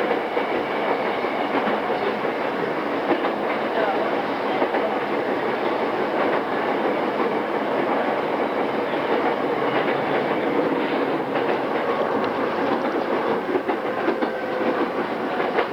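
Onboard running sound of a JR East E217-series EMU motor car (MoHa E217), unrefurbished, rolling along with its wheels clacking over rail joints. The train is approaching its next stop. A couple of steady motor tones come in near the end.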